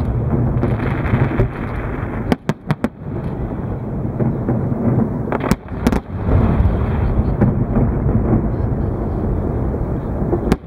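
Fireworks display: aerial shells bursting, heard as a continuous rolling rumble of booms. Sharp cracks stand out over it, four in quick succession about two seconds in, two more around six seconds, and one near the end.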